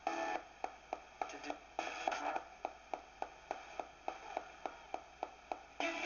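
Direct Linc ghost box radio sweeping through stations, ticking about four times a second as it jumps channel to channel, with brief snatches of static and broadcast sound between the ticks.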